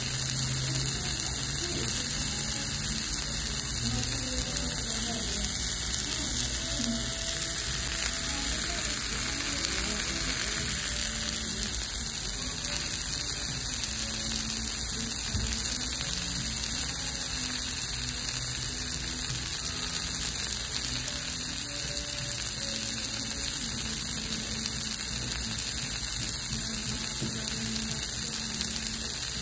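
Chicken fajitas with peppers and onions sizzling on a hot cast-iron fajita skillet, a steady hiss that holds at the same level throughout.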